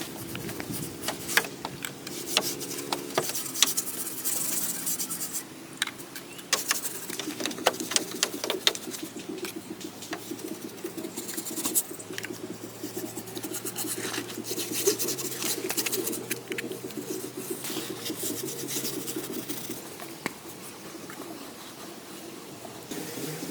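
Wood being worked by hand: a continuous rubbing, scraping sound broken by many irregular sharp clicks and small knocks.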